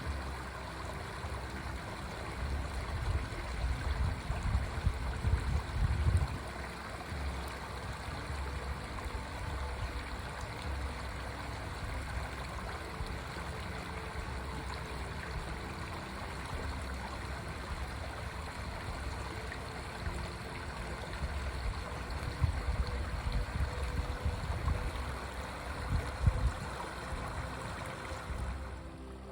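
A forest stream flowing steadily, with a low rumble that swells up twice, a few seconds in and again near the end.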